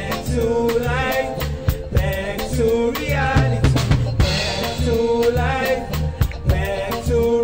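Live band music: a drum kit, bass guitar and keyboards backing two singers, with a steady drum beat and bass line under the vocals.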